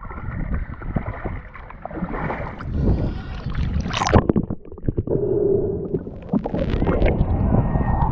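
Water sloshing and splashing around a camera held at the water's surface, in uneven surges with a brief drop about four and a half seconds in.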